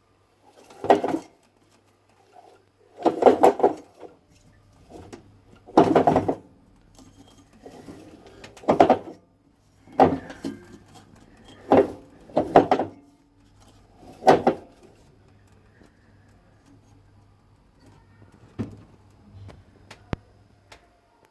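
Whirlpool washing machine drum clunking and scraping in loud bursts every couple of seconds over a low steady hum, the noise of a broken drum spider (tripod) where it joins the shaft. The bursts grow fainter near the end.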